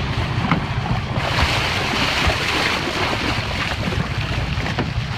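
Wind buffeting the microphone over sea water washing and splashing against the boat's side, with a steady low rumble underneath and a few faint knocks.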